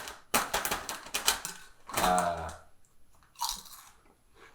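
Biting and crunching salt and vinegar potato chips: a quick run of crisp crackling crunches in the first second and a half, another short crunch about three and a half seconds in, with a brief hum of voice about two seconds in.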